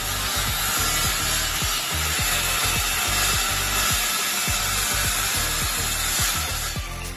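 Handheld electric circular saw (900 W, 185 mm blade) cutting through a wooden board under load. The loud, dense cutting noise drops away near the end as the cut finishes.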